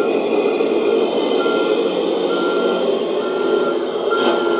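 1/14 scale RC Scania 770S truck's sound module sounding a reversing beeper, about one beep a second, over a steady hum of its engine sound and running drivetrain.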